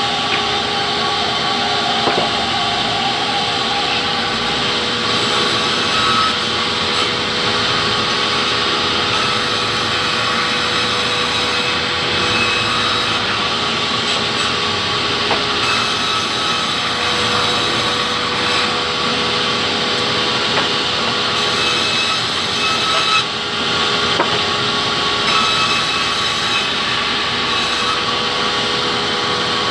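Large sawmill band saw running and ripping hardwood timber into planks: a steady, loud hum of blade and motor through the cut, with a few short knocks as the wood is pushed along the table.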